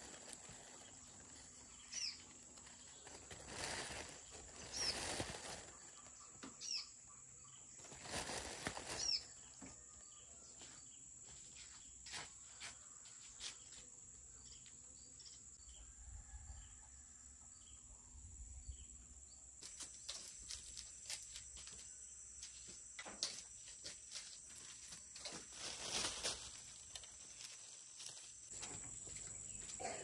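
Faint outdoor ambience: a steady high-pitched insect drone, with scattered short rustles that are loudest in the first ten seconds.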